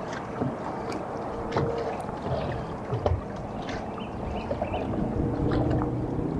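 Minn Kota Ultrex electric trolling motor running at low speed, driving the boat in slow circles for its compass sensor calibration, with a faint steady hum. Water slaps against the hull in scattered small splashes.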